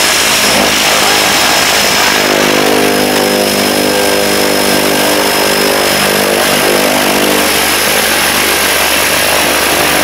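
Cessna 208 Caravan's single turboprop engine running on the ground, a steady loud drone with a high turbine whine, while the propeller turns.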